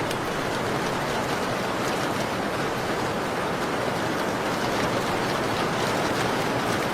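Steady rain, an even rushing hiss, with a few faint sharp ticks scattered through it.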